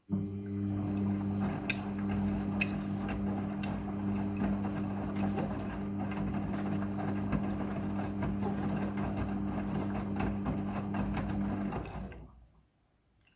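Midea front-loading washing machine running a pump or water valve during the rinse cycle: a steady electric hum over rushing water with light ticks. It starts abruptly and cuts off about twelve seconds in.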